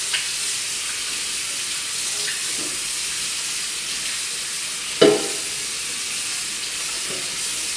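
Kitchen tap running steadily, the water splashing onto a plate held under it to rinse off soap. A dish clinks sharply once, about five seconds in.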